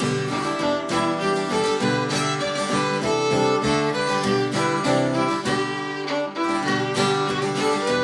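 Fiddle playing a folk tune in quick bowed notes, with acoustic guitar accompaniment underneath.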